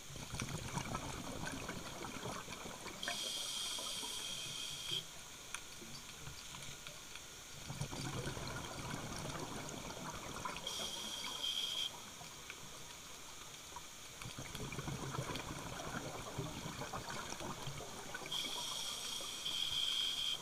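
A scuba diver breathing through a regulator underwater: three slow breath cycles, each a long gurgling rush of exhaled bubbles followed by a shorter, higher hiss of inhalation through the regulator.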